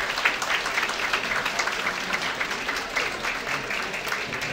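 Theatre audience applauding steadily, many hands clapping.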